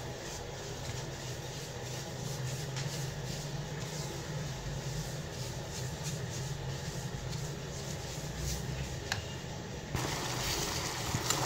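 Silicone spatula stirring and scraping a dry, crumbly roasted semolina mixture in a dish: faint, irregular scrapes over a steady low hum. About ten seconds in it changes to a faint steady hiss.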